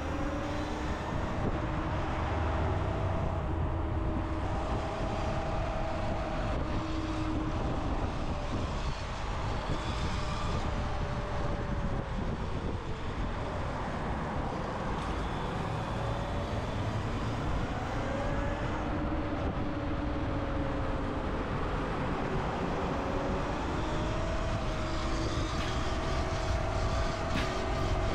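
Electric dirt bike's motor whining while riding, its pitch slowly rising and falling with speed, over a steady low rumble of wind on the microphone.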